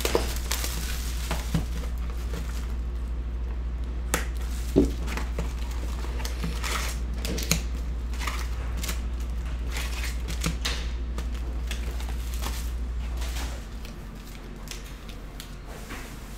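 Cardboard hobby box of Skybox Metal Universe hockey cards being opened and its foil card packs handled: scattered taps, clicks and crinkles, with one sharper knock about five seconds in. A steady low hum runs underneath and drops away about three-quarters of the way through.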